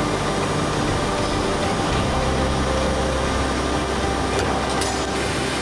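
Background music with sustained low notes that shift every second or so, over a steady shop hum.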